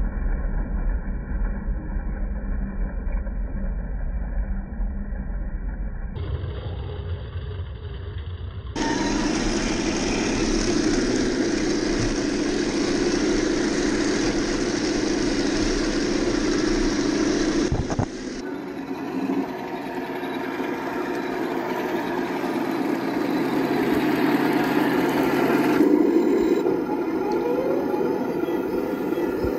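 Heng Long 1:16 scale RC Challenger 2 tank running, its sound unit playing a simulated tank engine over the whir of its drive motors and tracks. The sound changes abruptly several times as one driving clip cuts to the next.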